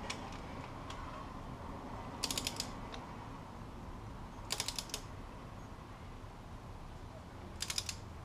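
Ratchet of a long torque wrench clicking in three short bursts of rapid clicks, a couple of seconds apart, as the wrench is swung back between pulls while the rocker arm bolts are being tightened down against the valve springs.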